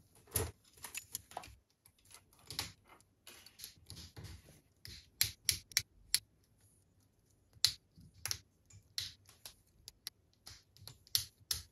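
Plastic cable drag chain clicking and rattling as it is handled and its links are pressed into place. The clicks are sharp and irregular, some coming in quick clusters.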